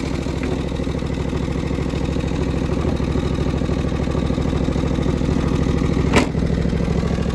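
A John Deere 425's liquid-cooled 20 hp Kawasaki FD620D twin-cylinder engine running steadily. There is one sharp tap about six seconds in.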